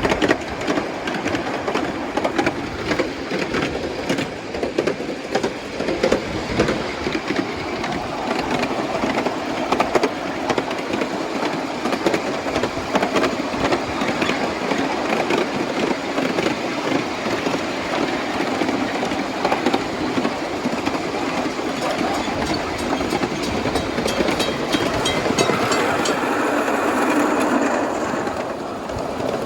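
7¼-inch gauge miniature train running along the track, its wheels clicking steadily over the rail joints. A higher-pitched sound joins for a few seconds near the end.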